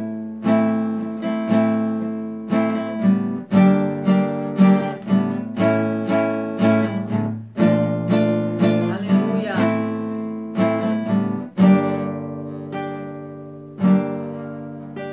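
Nylon-string electro-acoustic guitar played unplugged: chords plucked and strummed with the fingers in a steady rhythm of about two attacks a second, each chord ringing and fading before the next.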